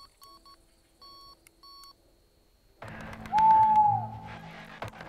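Electronic carp bite alarms giving short, single-pitch bleeps in an irregular pattern as the line is touched. About three seconds in, a sudden burst of background noise begins, with a loud held alarm tone, lower in pitch, as a reel spins on a take.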